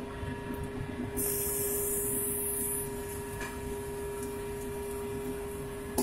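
Fried rice cooking in a hot wok over a steady kitchen hum, with a loud sizzle coming in about a second in and lasting a second and a half. A sharp clack of the metal ladle on the wok comes right at the end.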